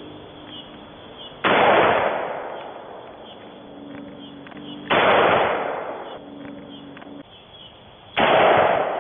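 Three single shots from a Bushmaster AR-15 rifle, about three and a half seconds apart, each a sharp report that dies away over about a second.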